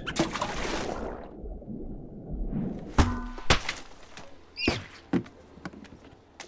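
Cartoon sound effects: a short rushing noise that dies away, then a run of sharp knocks and thunks, the loudest about three seconds in, with a brief squeaky chirp between them.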